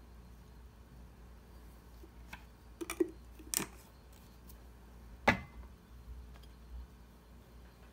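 A few light knocks and clicks over a faint low hum, with a small cluster about three seconds in and the sharpest knock just after five seconds.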